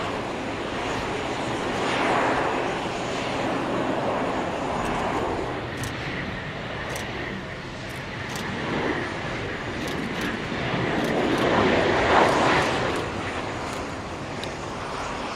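Airliner engine noise as aircraft land on a runway: a turboprop ATR 72 rolling out, then a Boeing 737-800 jet arriving. The noise swells and fades several times and is loudest about twelve seconds in.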